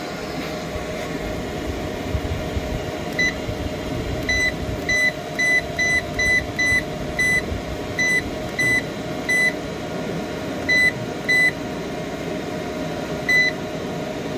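Key beeps from an 8 kW off-grid solar inverter's front panel as its buttons are pressed to step through the display readings: about fourteen short, high beeps, several in quick runs, over a steady hum.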